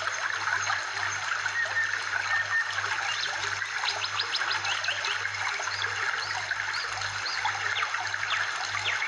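Running water with many short, high chirping calls over it and a steady low hum beneath.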